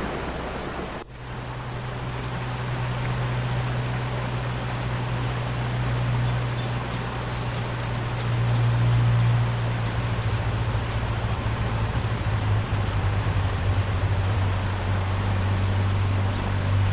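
Outdoor ambience: after a brief dip about a second in, a steady low drone sits under a rushing haze of noise. Midway, a bird gives a quick series of about ten short high chirps.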